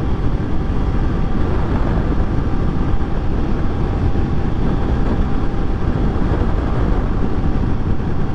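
A 2013 Honda XRE300's single-cylinder engine running steadily at highway cruising speed, about 90 km/h, under a heavy rush of wind and road noise on the camera microphone.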